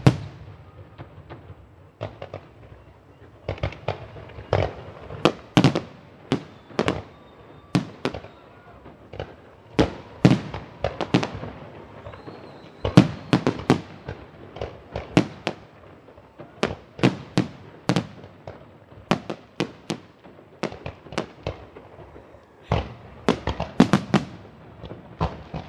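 Fireworks going off: a rapid, irregular series of sharp bangs and pops, roughly two a second, some louder than others and each with a short echoing tail.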